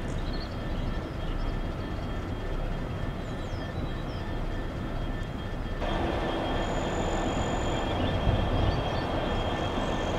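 GB Railfreight Class 69 diesel locomotive's EMD 12-cylinder engine running steadily with a thin constant whine. About six seconds in the sound steps up abruptly and gets louder, and a brief high squeal follows.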